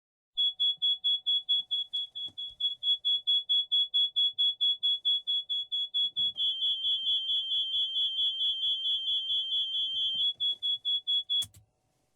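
Electronic alarm beeping rapidly, a single high beep about five times a second. A second, continuous high tone sounds under it from about six seconds in until about ten seconds in. The beeping cuts off suddenly with a click near the end.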